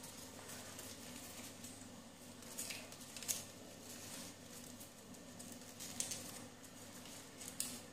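Origami paper rustling and crinkling as it is folded and pressed by hand, with a few short, sharp crackles spread through.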